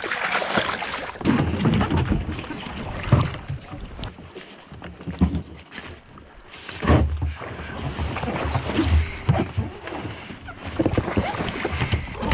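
Water splashing and sloshing around a capsized sea kayak as the paddler gets back into it, in uneven bursts, with gusts of wind buffeting the action camera's microphone.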